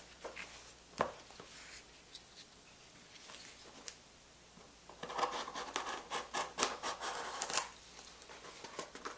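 A package being opened by hand: scratching and rustling of packaging with a sharp knock about a second in, then a denser burst of scratching and rustling lasting a couple of seconds, starting about five seconds in.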